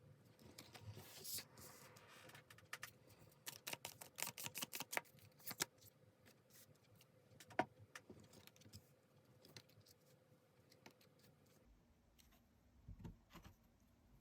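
Tarot cards being handled: soft rustling, then a quick run of card flicks and taps a few seconds in, and one sharp tap a little past halfway. A faint steady hum sits under most of it and stops near the end.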